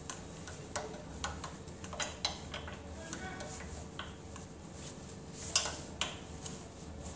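Scattered light metal clicks and taps at irregular intervals as the left pedal is screwed and tightened into the crank arm of a spin bike.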